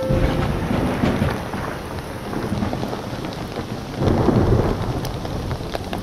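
Heavy rain pouring onto a pond's surface, with low rumbles of thunder swelling at the start and again about four seconds in.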